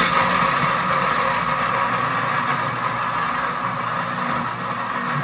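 Pampered Chef Deluxe Cooking Blender's motor running steadily on its nut butter program, grinding roasted almonds into almond butter.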